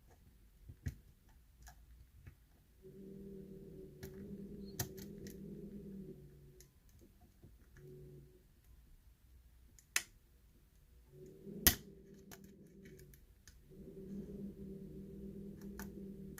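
Lock picks working inside a pin-tumbler challenge lock: scattered small clicks and taps, a handful of them sharp, the loudest about two-thirds of the way through. A low steady hum comes and goes underneath.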